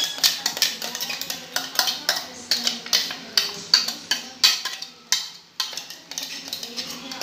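Steel utensils clinking and knocking against a stainless-steel cooking pot, a run of irregular sharp clinks two or three a second.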